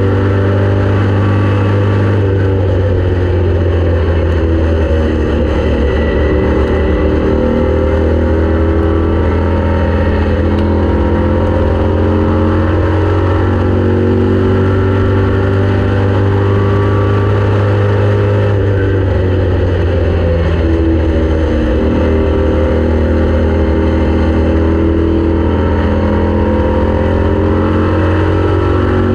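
Race car engine running hard on an oval, its pitch slowly sinking and then climbing again over several seconds as it lifts off and gets back on the throttle.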